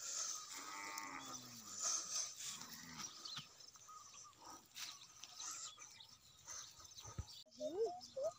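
Cow mooing: a low call falling in pitch about a second in, then a shorter call at about two and a half seconds.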